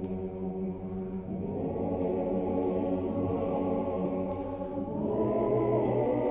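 Choir singing a slow chant in long held chords, the harmony shifting about a second in and again near the end.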